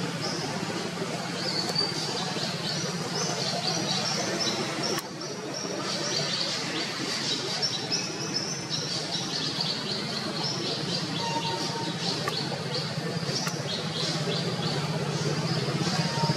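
Birds chirping: a steady run of short, high chirps, over a low steady background hum.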